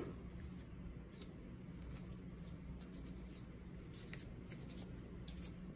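Faint rustling and a few light ticks of small cardstock bead cutouts being picked up and handled, over a low steady hum.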